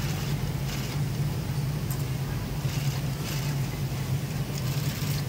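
Steady low hum of a garment factory floor, its sewing machines and other machinery running, with a few short hissing sounds over it.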